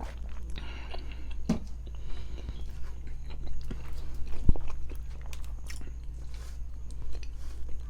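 Close-miked chewing and biting: wet mouth noises and small crunching clicks of someone eating, with a sharp knock about four and a half seconds in, over a steady low hum.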